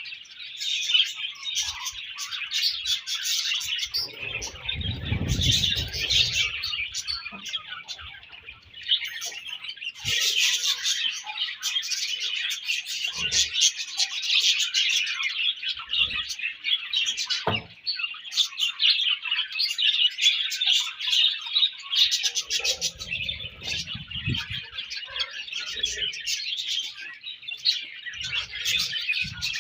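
A colony of budgerigars chattering and chirping continuously, many birds warbling at once. A low rumble comes twice, about four seconds in and again near the end.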